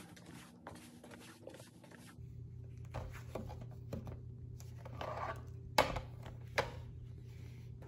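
Quiet handling sounds: soft footsteps in slippers on a hardwood floor, then a tablet in its case being set on an exercise bike's console and touched. About six seconds in come two sharp clicks less than a second apart, over a steady low hum.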